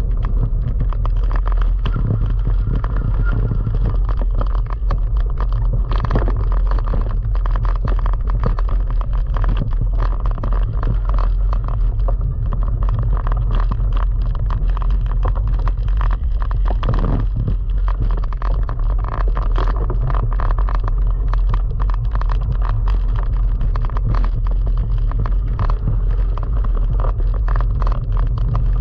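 Cyclo-cross bike riding over a dirt path strewn with fallen leaves: a constant low rumble of tyres and jolting, with the bike rattling and clicking over the bumps.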